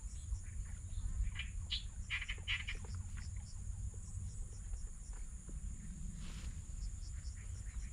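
Swamp-edge ambience: insects trilling in a steady, high, pulsing drone, with many short chirping calls scattered through, thickest a couple of seconds in, over a low rumble.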